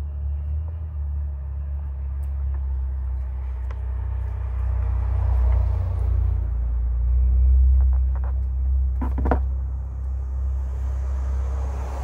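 Steady low rumble throughout, with a few short clicks and rustles about nine seconds in as flowers are handled on the table.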